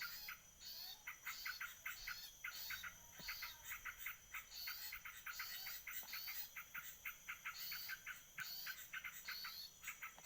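Small birds calling, with fast ticking trills and short high chirps repeated over and over, over a steady high insect drone.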